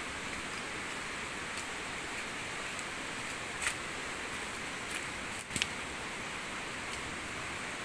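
Steady hiss of heavy rain, with a few sharp clicks scattered through it.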